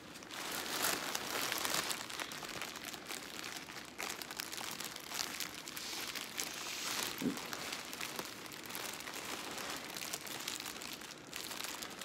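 Clear plastic packaging crinkling and rustling as it is handled and pulled open by hand, with irregular small crackles throughout.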